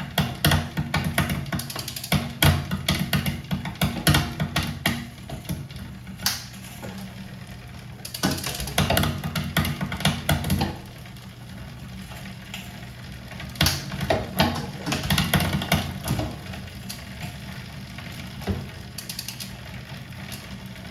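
Fuji road bike's rear derailleur and chain clicking and clattering irregularly as the drivetrain turns. The derailleur is shifting badly, so the chain runs noisily across the cassette. The clatter comes in busy clusters with lighter stretches between them.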